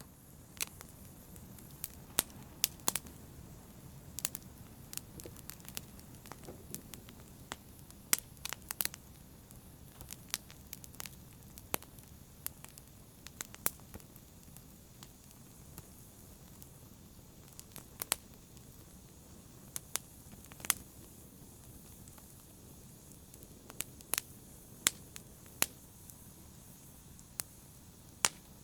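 Fire crackling and popping in a brazier: sharp, irregular pops, sometimes in quick clusters, over a soft steady hiss of burning.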